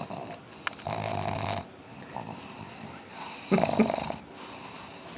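Pug making two noisy nasal breaths: a shorter one about a second in and a louder, rougher one past the middle.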